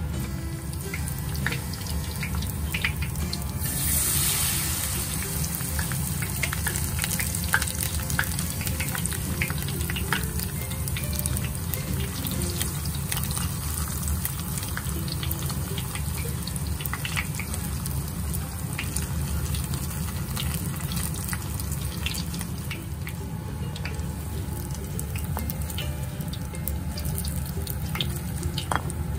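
Battered vegetable tempura deep-frying in hot oil: a steady sizzle full of irregular sharp crackles, with a louder hiss about four seconds in.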